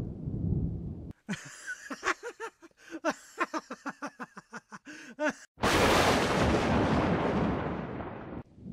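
A low rumble, then a high laugh in quick repeated bursts for about four seconds, cut off by a sudden loud thunderclap that dies away over about three seconds.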